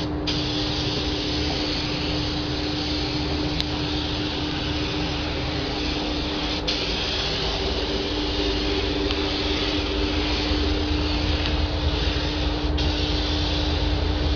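Gravity-feed paint spray gun spraying on compressed air: a steady hiss, cut off briefly a few times, over a steady low hum.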